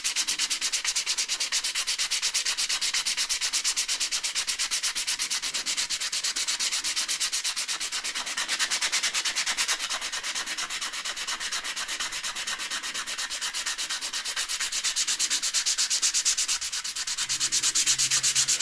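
Hand sanding a wood knife handle of wenge, maple and olive with sandpaper: quick, even back-and-forth strokes making a continuous scratchy rasp.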